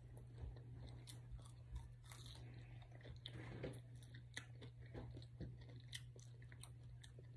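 Faint close-up chewing and biting of lemon pepper chicken wings, with scattered small crunches and clicks, over a steady low hum.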